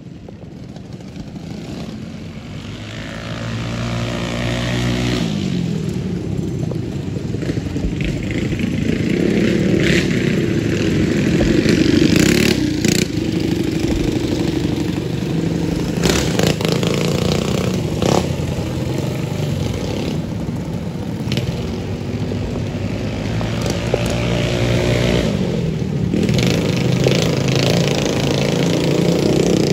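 Small gas mini bike engines revving and accelerating hard down a dirt drag strip, the note climbing as a bike launches, loudest as it passes close by. A few sharp cracks come midway, then another bike's engine climbs in pitch near the end.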